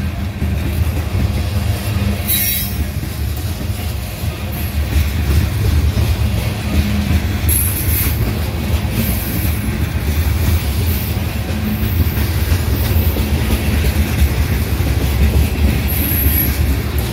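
Union Pacific freight train rolling past, a loud steady rumble of cars on the rails with short bursts of high-pitched wheel squeal several times.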